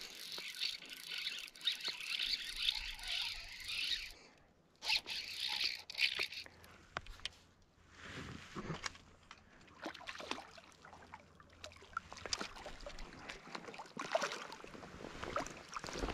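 Water splashing and sloshing in irregular bursts as a hooked Bonneville cutthroat trout fights hard at the surface. Two longer bursts come in the first six seconds, then scattered short splashes from about eight seconds on.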